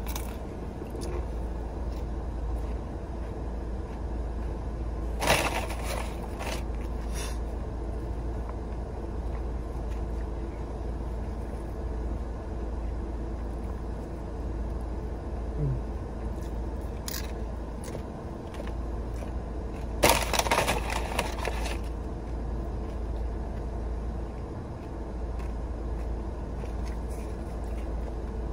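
Crunching and chewing of food while eating from a paper bowl, in two short crackly bouts about five seconds in and again about twenty seconds in, the second the louder. Underneath is a steady low hum from the car cabin.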